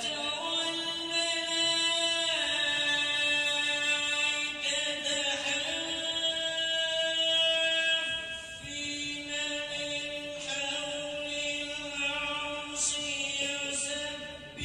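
A voice reciting the Quran in the melodic, drawn-out qirat style, holding long notes, with a short break about eight and a half seconds in before the next phrase.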